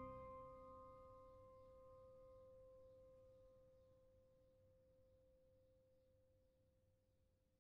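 The final held chord of organ music dying away over the first few seconds, fading into near silence with only a faint steady tone left.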